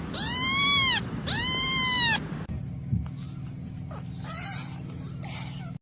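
Kitten meowing twice, each a high call rising then falling in pitch, a little under a second long. Then a faint steady hum with a few soft rustles.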